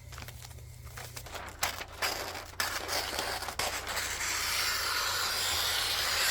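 Paper or packaging being handled: scattered crinkles and clicks from about a second and a half in, then a steady rubbing, tearing rustle over the last couple of seconds.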